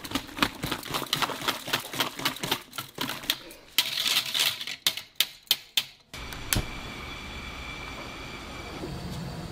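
Quick, irregular knocks and clacks, several a second, for about six seconds, then a sudden change to a steady hiss.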